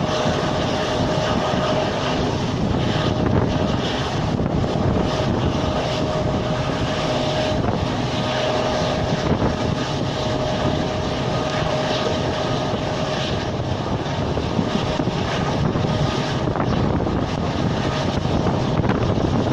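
Passenger train running at speed, heard from on board: a steady rush of wind and wheels on the rails, with the drone of the leading EMD WDP-4D diesel locomotive.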